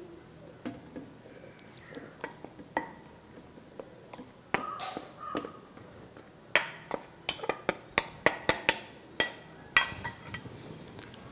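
A spoon and a ceramic bowl knocking against a blender jar while flour is scraped and tipped in. A few scattered light taps and a brief scrape come first, then a quick run of sharp knocks from about six to nine seconds in, with a couple more near the end.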